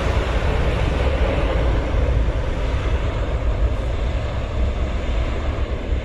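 Jet engines of a departing Biman Bangladesh Boeing airliner climbing away: loud, steady engine noise with a deep rumble, its higher hiss thinning a little in the second half.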